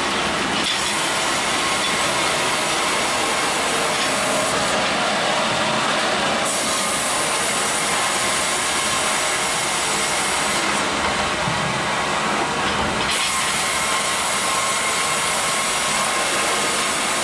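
Mebor HTZ 1300 PLUS horizontal band sawmill running in automatic double-cutting mode: a steady, loud rush of the band blade sawing through a squared log, with the machine's drive running. The high hiss drops away twice for a second or two.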